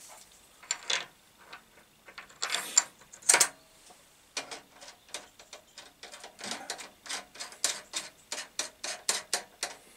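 Metal clicks and scrapes as an M10 collet is fitted and tightened by hand in the spindle of a Naerok mill/drill: a few separate scrapes and clicks at first, then from about four and a half seconds a run of quick clicks, about three a second.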